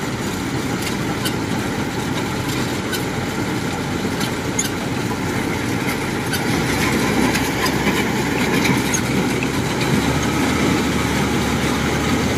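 Kubota DC-95 combine harvester's diesel engine running steadily, growing louder about six to seven seconds in as the machine pulls forward into the rice.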